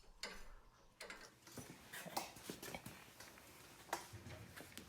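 Faint, scattered clicks and light metal knocks at irregular intervals, from hand tools and suspension parts being handled.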